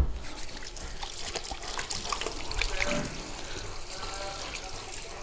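Tap water running steadily into a sink as hands are washed under it.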